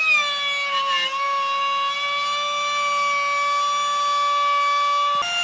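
Steady high whine of an electric woodworking power tool's motor. The pitch dips slightly about a second in, holds level, then jumps up sharply near the end.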